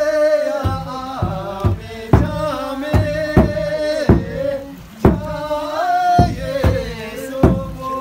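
A group singing a traditional Gurung song together, in long held notes that slide between pitches, over a steady beat of sharp knocks about twice a second.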